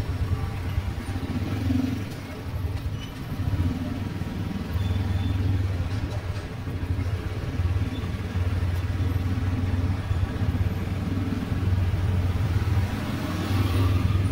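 City street traffic: motorbikes and cars running by in a steady low rumble, with one vehicle passing closer near the end.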